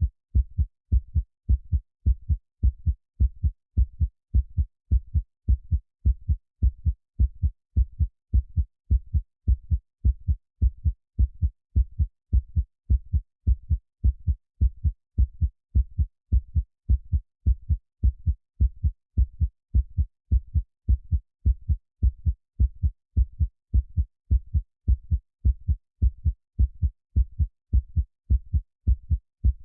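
Heartbeat sound: a steady, even rhythm of low double thumps (lub-dub), repeating without change.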